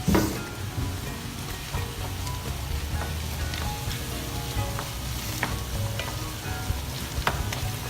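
Tomato and oil sizzling in a frying pan, with scattered small pops and clicks and a single knock at the very start.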